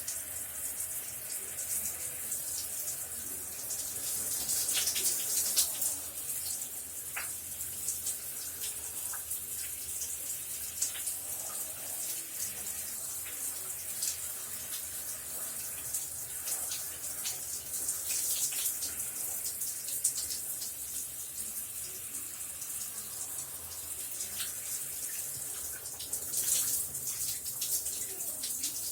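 Shower running steadily: a constant hiss of water spray with scattered splashes and drips.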